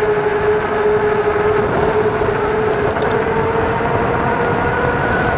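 Fat tires humming loudly on asphalt, mixed with wind rushing over the microphone, as the e-bike coasts downhill at nearly 30 mph. The hum is steady and edges up in pitch near the end as speed builds.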